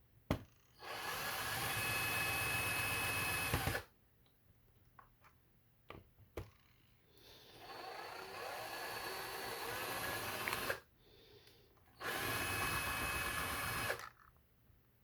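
Electric drill/driver running in three bursts of a few seconds each with a steady whine, the second building up gradually, as screws are driven out to take the lock off its mount.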